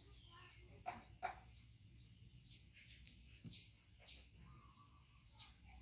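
Faint birdsong: a short high chirp repeated steadily about twice a second, with a couple of louder, falling calls about a second in.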